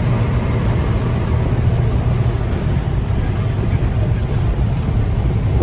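Vehicle engine and road noise heard from inside the cab while driving: a steady low drone.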